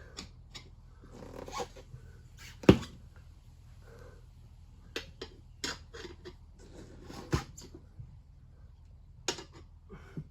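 Tyre levers clicking and knocking against the wheel rim as the tyre bead is levered on a bit at a time, with a sharp knock nearly three seconds in and another about seven seconds in.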